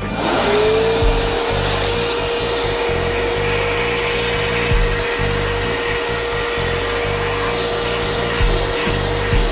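A small electric cleaning tool with a nozzle switches on, its motor spinning up within half a second to a steady whine over a rush of air, and keeps running.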